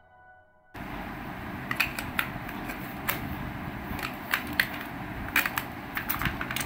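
Hands handling a plastic toy airliner and loading AA batteries into its battery compartment. Starting about a second in, a scattered string of sharp plastic clicks and taps sounds over a steady hiss.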